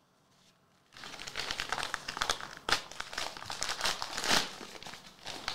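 White paper wrapping of a trading-card pack being torn open and crumpled by hand: a crackling paper rustle that starts about a second in and keeps going.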